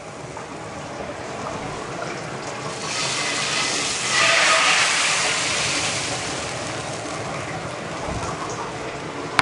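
Water poured into a hot pan on the stove, making a hissing rush that swells about three seconds in, peaks, then slowly eases.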